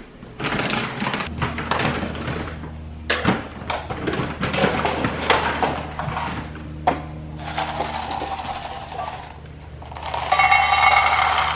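Dry dog kibble poured from a plastic cup into a stainless steel bowl: a dense, loud rattle of many small pieces hitting metal, starting about ten seconds in. Background music with a steady low hum runs underneath.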